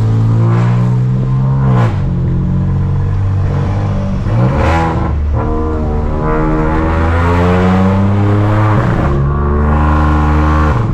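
Volkswagen Virtus 1.0 TSI turbocharged three-cylinder engine accelerating hard at high revs, breathing through a stainless downpipe and a Y catback with no rear muffler and dual outlets. The exhaust note is very loud and climbs in pitch, breaking sharply at gear changes about three times.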